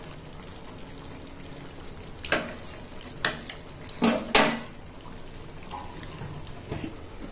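Mustard fish curry simmering in a pan on a gas stove, a steady low hiss and bubble. A handful of short sharp clicks and knocks come between about two and four and a half seconds in.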